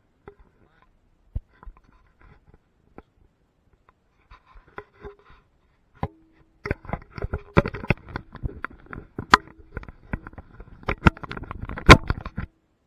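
Woodworking clatter: a few separate knocks, then from about halfway a dense, irregular run of sharp knocks and scraping on wood over a faint steady hum, with the loudest knock near the end.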